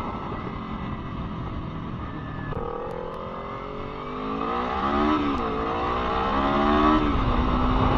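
Sport bike engine pulling away at low speed, picked up by an action camera with wind muffs in its case, over road and wind rumble. About two and a half seconds in the engine note comes up and rises in pitch, drops back briefly around the middle, then holds steady and gets louder toward the end.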